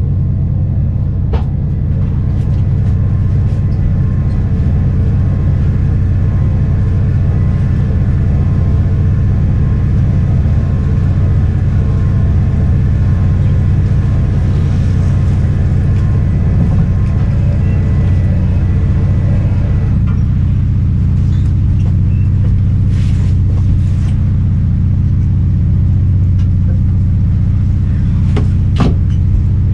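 Fishing boat's engine running steadily with a low, even drone. A few short knocks come near the end.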